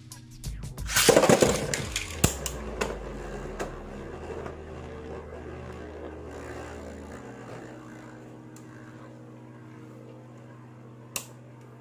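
A Beyblade Burst top is launched with a loud rip and clatter about a second in. It then spins with a steady whir that slowly fades, with a few clicks along the way and one sharp click near the end.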